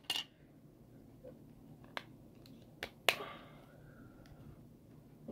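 A handful of short, sharp plastic clicks from handling an LG UX3300 flip phone: the battery and back cover being fitted and its keypad buttons pressed to switch it on. The loudest click comes just after the three-second mark.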